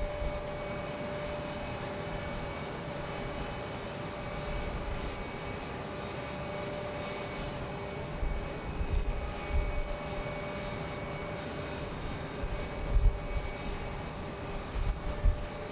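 Boeing 747's four jet engines droning steadily with a few steady whining tones as it climbs out at takeoff power. Gusts of wind buffet the microphone about halfway through and again near the end.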